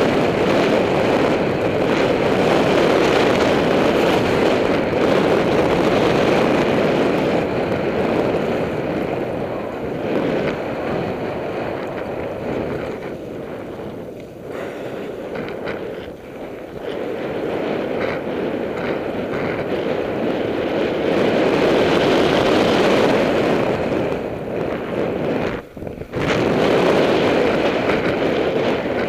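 Wind rushing over the camera microphone during a fast mountain-bike descent on a dirt track, loud and steady. It eases for a few seconds midway and drops out briefly near the end.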